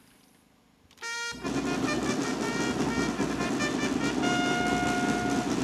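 Military brass band striking up about a second in: loud sustained brass chords over drums, with one higher note held near the end, playing as the inspecting officer is saluted.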